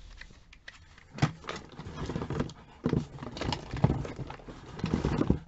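Hands handling small plastic cosmetic items and their packaging on a tabletop: a few sharp knocks with rustling between them, stopping abruptly near the end.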